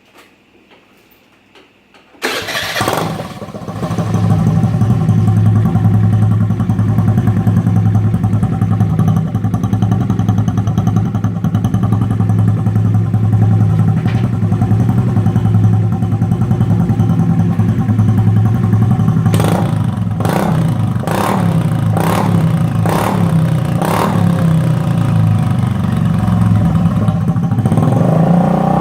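Honda Dio scooter's single-cylinder engine with an aftermarket Akrapovic-style silencer, started about two seconds in and then idling steadily. About two-thirds of the way through it is given several quick throttle blips before settling back to idle.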